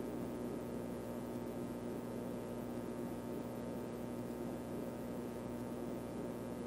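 Faint steady hum with a soft hiss under it.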